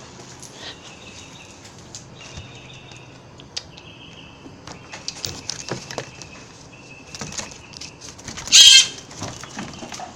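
A young blue jay calling in short, high cries, with one loud harsh scream about eight and a half seconds in.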